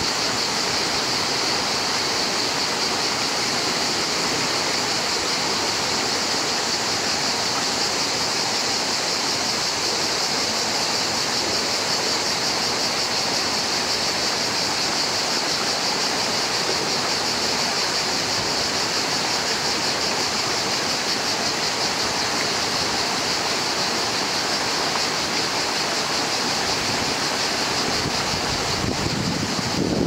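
Shallow rocky stream rushing over stones, a steady, even sound of running water.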